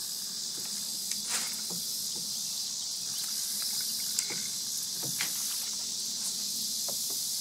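A steady chorus of insects chirring in a high band, with a few faint clicks scattered through it.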